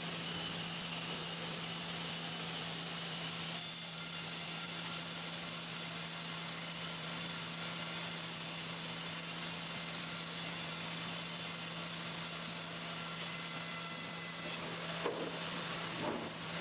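Steady hum and hiss of sawmill machinery, with a couple of faint knocks near the end.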